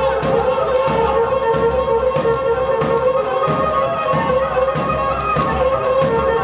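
Live Pontic Greek folk dance music: a bowed Pontic lyra plays a steady melody over a drum beating about twice a second.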